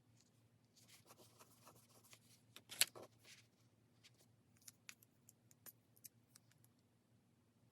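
Faint desk sounds of paper and stationery being handled: a soft rustling scrape, a sharp click about three seconds in, then a scatter of small taps and ticks.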